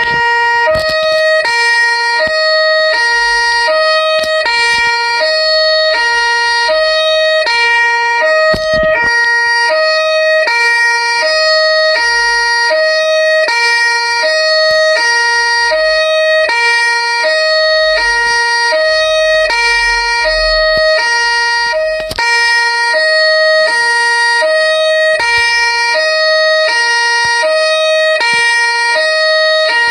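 Two-tone police siren ringtone alternating between a low and a high note, switching a little under twice a second, with a steady high tone running underneath.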